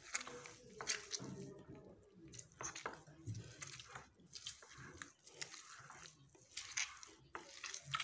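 A hand squeezing and kneading a moist paste of ground almonds, butter and orange blossom water in a glass bowl: faint, irregular wet squishing and sticky smacks.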